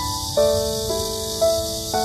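Background music: a gentle keyboard melody of single notes, each changing about every half second, over a steady high hiss.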